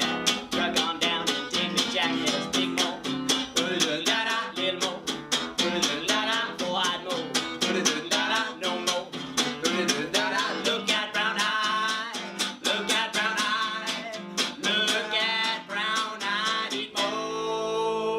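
Acoustic guitar strummed in a brisk swing rhythm, with a wordless melody line over the chords. Near the end the strumming stops on a held note.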